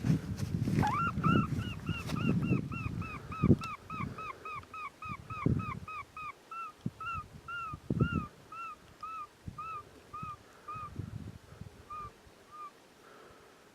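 Electronic predator caller playing a canine distress call: a rising yelp, then a fast even string of high whimpering yips, about four or five a second, that slows and fades out near the end. Dull thumps and handling noise sound underneath in the first half.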